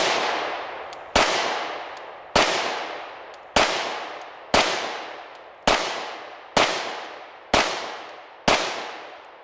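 About nine 9mm pistol shots from a Glock 19, fired one-handed at roughly one a second, each followed by a long echo fading out. The rounds alternate between standard-pressure and +P Federal HST 124-grain loads.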